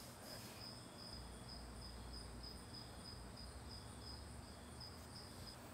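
Faint cricket chirping steadily, a high, evenly pulsing tone over quiet room tone, with a low hum that comes in about a second in and fades a couple of seconds later.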